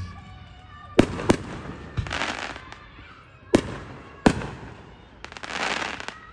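Aerial fireworks going off: four sharp bangs of shells bursting, the first two close together, with two spells of crackling from the bursts.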